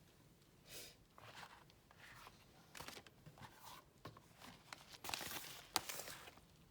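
Faint rustling and crinkling of packaging and objects being handled, a string of short scrapes that grows busier past the middle, with one sharp click near the end.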